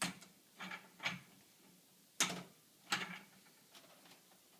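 Sharp clicks and knocks from the permeate hose fittings of an ultrafiltration membrane module being disconnected, five in about three seconds, the last two louder.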